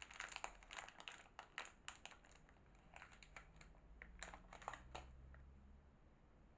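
Faint crinkling and clicking of soap packaging being unwrapped by hand: a quick run of small crackles that stops about five seconds in.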